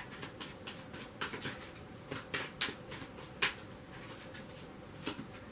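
Oracle cards being handled and thumbed through in the hands: a string of light clicks and taps, most in the first three and a half seconds, with a couple more near the end.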